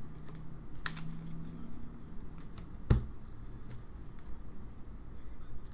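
Glossy chrome trading cards being handled and flipped through by hand: light rustling with a few sharp clicks, and one louder knock about three seconds in.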